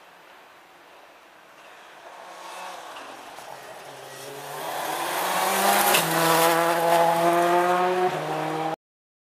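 Rally car engine growing louder as it approaches at speed on a gravel stage. It is revved hard and the pitch steps with gear changes, then the sound cuts off abruptly near the end.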